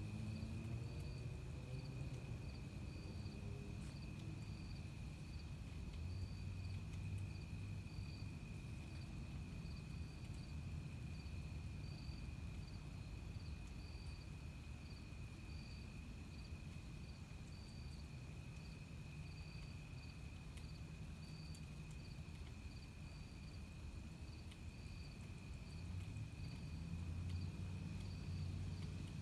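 Insects calling at night: one steady high trill and a second, higher chirp repeating in a regular pulse, over a low rumble that swells near the end.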